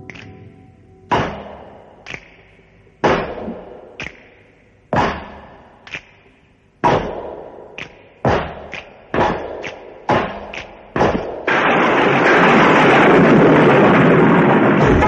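A series of heavy thuds with short ringing tails, about one a second, coming faster after about eight seconds. About eleven and a half seconds in they give way to a loud, continuous rushing noise that lasts to the end.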